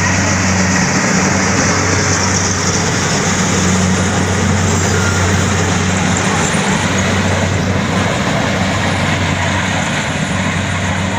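Kubota DC70 combine harvester's diesel engine running steadily at an even speed: a constant hum under broad mechanical noise.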